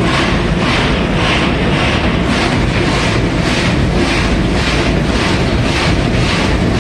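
TSS Earnslaw's coal-fired steam machinery running: a steady low rumble with a hiss that swells and fades about twice a second, in time with the engines' turning.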